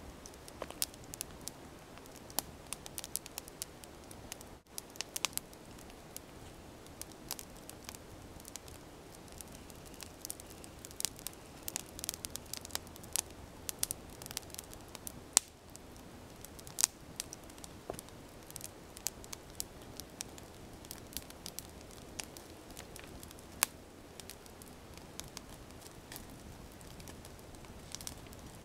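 Small split-wood campfire crackling, with irregular sharp snaps over a faint steady hiss; a few snaps near the middle are louder.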